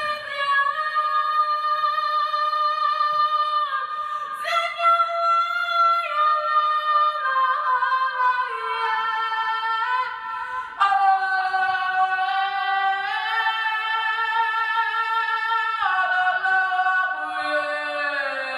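Female voices singing sustained a cappella harmonies: several held notes sound together and shift in steps from one chord to the next, with no drums or bass.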